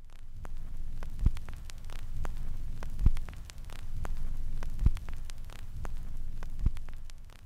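Low hum and crackling static, with a dull thump four times, evenly spaced about every second and three-quarters.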